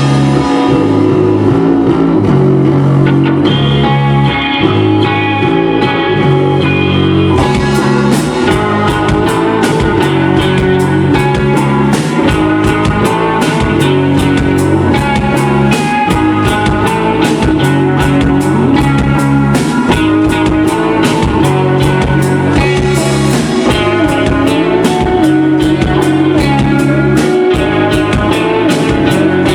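Rock band playing live: electric guitars over bass, with drums and cymbals coming in about seven seconds in and keeping a steady beat.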